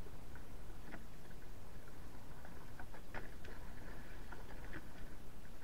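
Water lapping against a wooden boat's hull in scattered small ticks and pats, over a steady low rumble of wind on the microphone.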